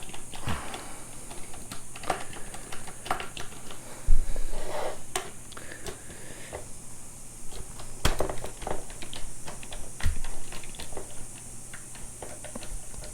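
Irregular clicking as spring-loaded T30 Torx screws behind a Chevy Silverado steering wheel are unscrewed until they click free, with a few louder knocks about four, eight and ten seconds in.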